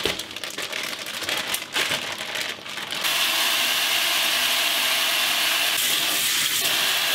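Plastic zip-top bag crinkling and rustling as it is handled. About three seconds in, the kitchen faucet comes on and water runs steadily into a stainless-steel sink.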